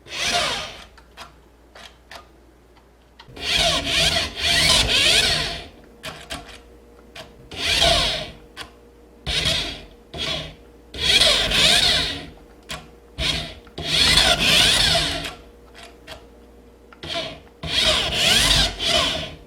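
Small electric drive motor and gears of a remote-control toy car whirring in repeated short bursts of up to about two seconds as the car is driven, each burst rising and falling in pitch.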